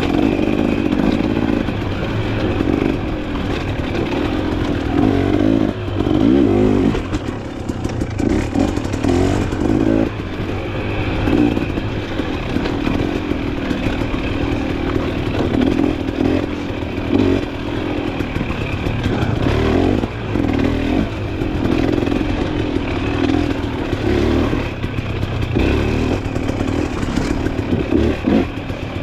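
Dirt bike engine running under load as the bike is ridden along an off-road trail, revving up and easing off again and again, with frequent knocks and rattles from the bike over rough ground.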